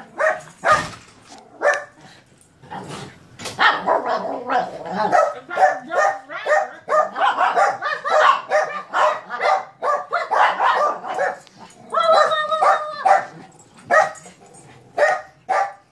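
Two small dogs barking and yipping in rapid, overlapping calls as they excitedly greet their owner.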